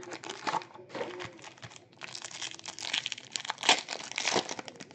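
Plastic foil wrappers of Panini Mosaic basketball card packs crinkling and tearing as packs are ripped open and handled, with a dense run of crackling from about two seconds in.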